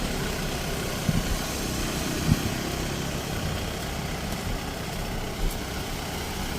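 Diesel engine of farm machinery (a tractor or combine harvester) running steadily, with a few short dull knocks; the sharpest comes a little over two seconds in.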